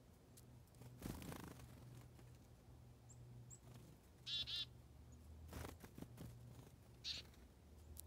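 Black-capped chickadee calling: a short run of quick, buzzy 'dee' notes about four seconds in and a brief higher call near seven seconds. Soft rustles at about one second and five and a half seconds come between the calls.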